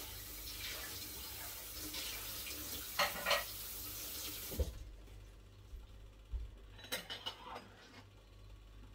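Water running steadily from a tap, shut off abruptly a little past halfway. Afterwards a few light knocks and clatters as a plastic cutting board is handled on the counter.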